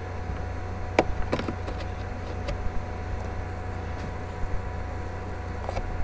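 Steady low hum of background noise, with a few short clicks about a second in and again near the end.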